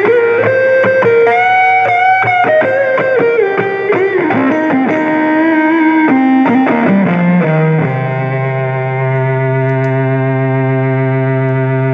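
Overdriven electric guitar, a Squier Stratocaster through a TC Electronic El Mocambo overdrive into a Fender Champion 20 amp, playing a single-note lead with string bends and a descending run. About two-thirds of the way in it lands on a low note that rings on with long, steady sustain.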